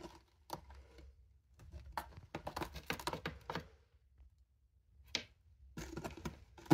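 Norwegian Forest Cat's claws scratching and catching on a sisal-rope scratching post in quick bursts of rapid scratchy clicks, with a sharper knock at the very end.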